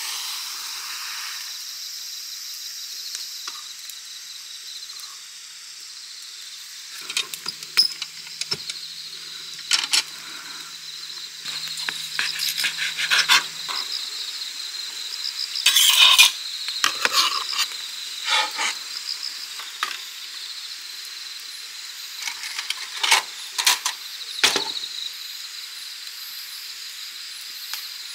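Steady chirping of insects throughout, with a match flaring briefly at the start. From about seven seconds in, scattered clicks, clinks and scrapes of a fork and knife against a cutting board and plate as grilled pork is cut, loudest around the middle.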